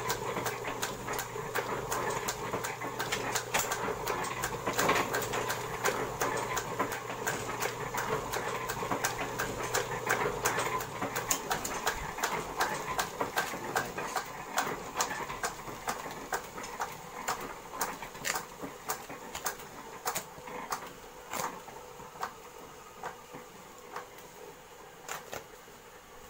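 Hand-operated die-cut machine being worked by its handle, with rapid clicking and rattling over a steady low hum that stops about eleven seconds in. After that, the freshly die-cut card sheets are handled and pulled apart, with scattered crisp clicks and rustles that grow sparser and quieter.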